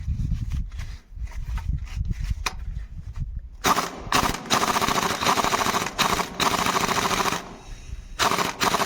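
Impact wrench hammering in two runs, one of about four seconds and a shorter one near the end, working bolts loose or tight during a clutch plate replacement. Before it come a few scattered metal knocks and clanks.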